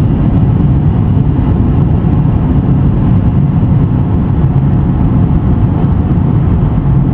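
Steady low road and engine noise inside a moving car's cabin.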